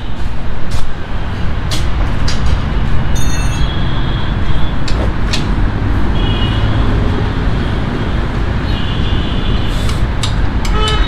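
Hand tools and metal parts clinking and ringing at irregular intervals over a steady low rumble, as rear shock absorbers are being unbolted from a motorcycle. There is a cluster of clinks near the end.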